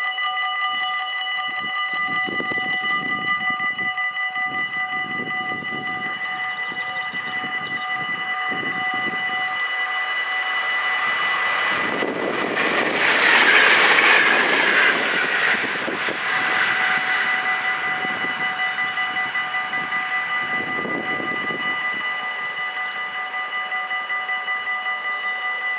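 Dutch level-crossing warning bells ringing steadily while an NS DM '90 diesel multiple unit approaches and passes, the train loudest about 13 to 15 seconds in. The bells ring on after the train has gone and stop near the end.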